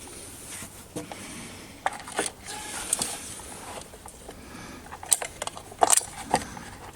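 Irregular small clicks, taps and rustles of hands working plastic parts, clips and wires inside an open Kenwood Chef stand mixer's housing, with a few sharper clicks scattered through.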